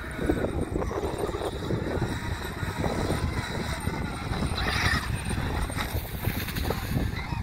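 Traxxas X-Maxx electric RC monster truck on a 6S battery driving over dirt: its brushless motor and drivetrain running with tyre noise, getting louder for a moment about five seconds in, under gusty noise on the microphone.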